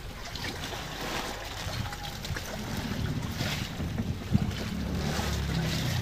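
Wind on the microphone and the sea washing around an outrigger fishing boat, with a low steady hum coming up in the second half and a single light knock about two-thirds of the way through.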